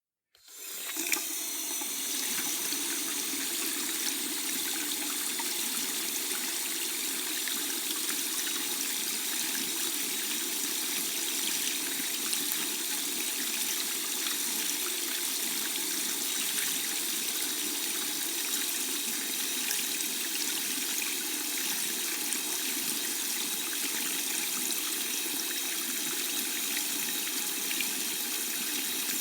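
Water tap running: a steady stream of water pouring into a sink, starting within the first second and flowing evenly without change.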